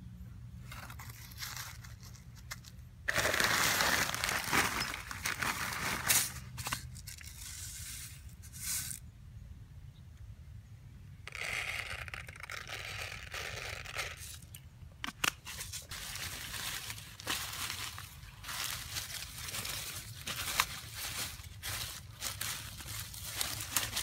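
Close rustling and crinkling of hands handling dry leaves, soil and plastic. There is a loud stretch about three seconds in, another around twelve seconds, then a scatter of small clicks and crackles.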